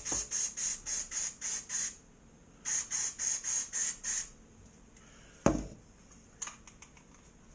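Aerosol can of electrical contact cleaner sprayed in two runs of rapid short spritzes, about four or five a second, into a computer mouse. A single sharp knock follows about five and a half seconds in, then a few light clicks.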